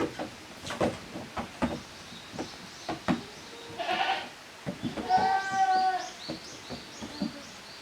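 Young goat kid bleating: a short call about four seconds in, then one long, high, even-pitched bleat, amid scattered light knocks.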